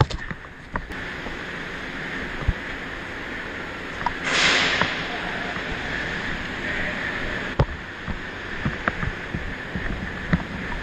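Movement and rustling noise on a body-worn action camera as the player moves, with scattered sharp clicks and a brief loud hiss about four seconds in.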